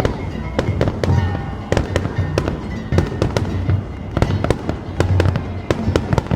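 Aerial fireworks going off in quick succession: many sharp bangs and crackles, several a second, over a low rumbling boom.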